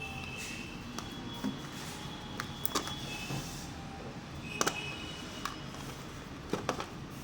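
Handling sounds of a smartphone box and its packaging being opened: scattered light clicks and taps over a steady background hiss, with a few faint short high tones.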